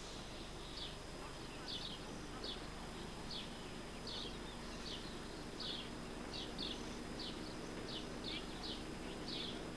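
Short, high, falling chirps repeated about twice a second from a small bird or insect, over steady outdoor background noise with a faint low hum.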